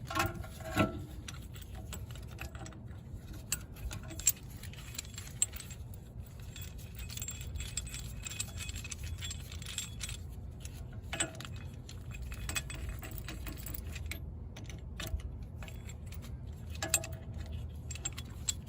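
Scattered metal clinks and taps as the steel parts of a brake caliper piston reset tool and its adapter are handled and fitted to a rear brake caliper, ready to wind the piston back.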